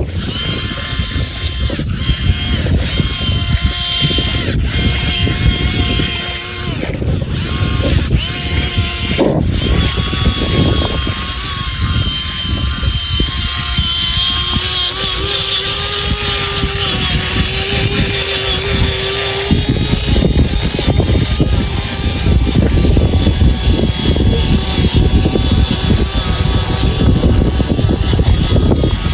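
Small electric motors and gears of radio-controlled model vehicles whining, with pitch shifting as they speed up and slow down, over a steady rumble.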